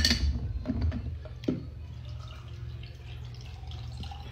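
Water poured from a plastic pitcher into a glass jar cup over ice, a faint trickling and dripping, with a few clicks and knocks of the glass and its lid in the first second and a half.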